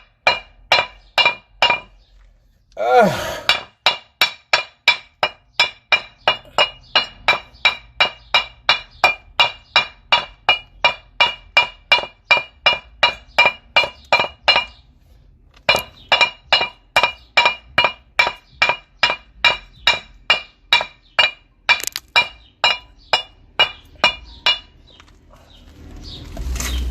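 Hammer blows on steel wheel-hub parts, struck in a steady run of about three blows a second with a clear metallic ring on each, stopping briefly twice.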